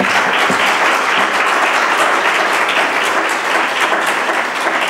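Audience applauding steadily: dense, even clapping from many hands.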